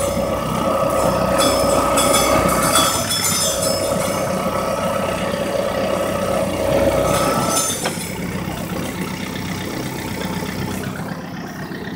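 John Deere 4066R compact tractor driving, with repeated metallic clanging from the front end over its running sound, the clanging fault the machine is being checked for. A steady high whine runs with it and stops about eight seconds in.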